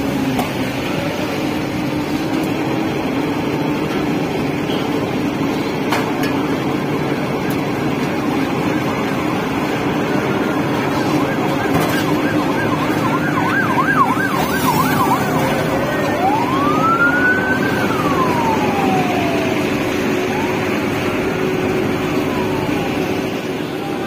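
Engines of an asphalt paver and the dump truck tipping hot-mix into its hopper run steadily. About halfway through, an emergency-vehicle siren sounds in the traffic, first a quick warbling yelp, then two slow rising-and-falling wails.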